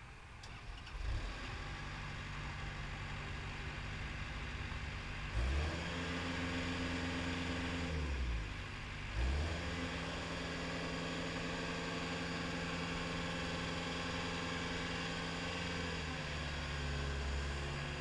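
Caterpillar 242B3 skid steer's diesel engine starting about a second in and idling, then revving up twice to a steady higher speed, with a brief dip in between. Near the end the engine note drops a little as the hydraulics raise the lift arms.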